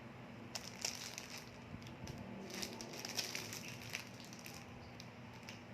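Faint crinkling and rustling of plastic packaging being handled, with scattered small clicks.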